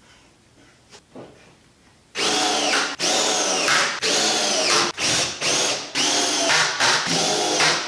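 Cordless drill driving screws through OSB sheathing into a 2x4 frame. After about two seconds of quiet, the drill runs in short bursts about a second apart, its whine dropping in pitch as each screw bites in and seats.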